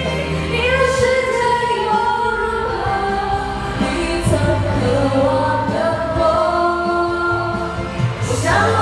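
A woman singing a pop song over karaoke backing music, holding long notes that glide between pitches. She is singing with a cold and a very sore throat.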